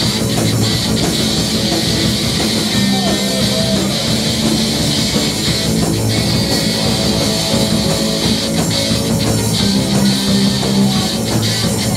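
Live rock band playing: distorted electric guitar over bass and a drum kit, loud and steady.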